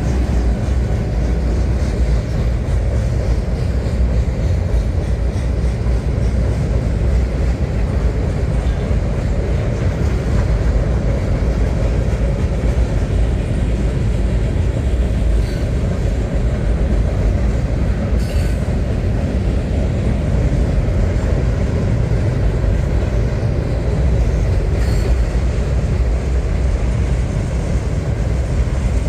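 Long freight train rolling past: a steady rumble of wheels and cars, with a few brief faint high squeaks.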